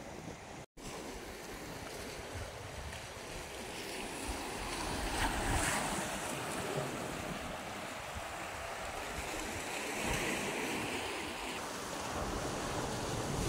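Small sea waves lapping and washing against a rock breakwater, swelling louder about halfway through and again later, with wind buffeting the microphone. The sound cuts out for an instant about a second in.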